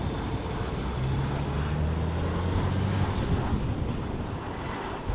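Jet airliner engines running, a steady noisy rumble, with a low hum standing out for a couple of seconds about a second in.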